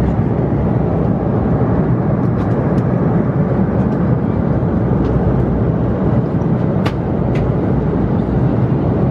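Steady cabin noise of a jet airliner in cruise: engine and airflow noise, with a couple of faint clicks about seven seconds in.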